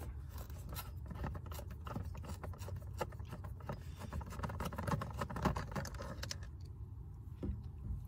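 Small irregular clicks, scrapes and rubbing of a narrow 5.5 mm nut driver turning a screw out from under a plastic steering-column shroud, quieter in the last couple of seconds.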